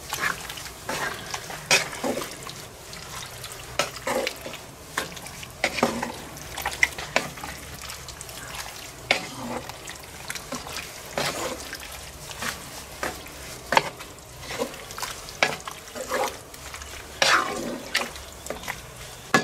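A wooden spatula stirring a thick, simmering stew of sausage and bell peppers in a cast-iron Dutch oven. It makes irregular wet scrapes and knocks against the pot, about one or two a second, over a continuous low hiss from the hot stew.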